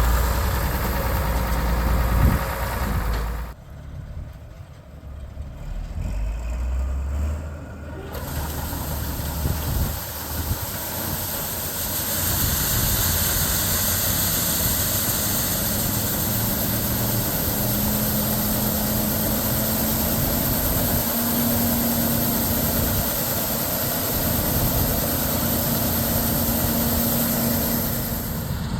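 John Deere 4420 combine's six-cylinder diesel engine running steadily. The sound drops away for a few seconds near the start, then comes back and holds even.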